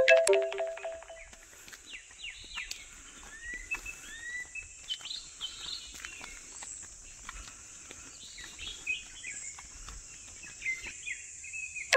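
Birds chirping and whistling, with short calls and a few rising whistles, over a steady high drone of insects. A brief, loud pitched sound comes right at the start.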